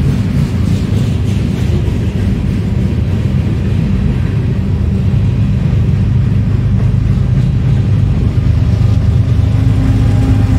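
Freight train boxcars rolling past with a steady, loud rumble of steel wheels on rail. Near the end a steady diesel engine drone joins in as BNSF locomotives behind the cars come alongside.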